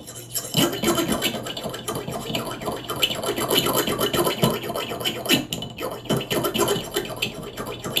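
The small metal file of a Leatherman Free T4 multitool rasping across the edge of an old steel hatchet head in rapid back-and-forth strokes.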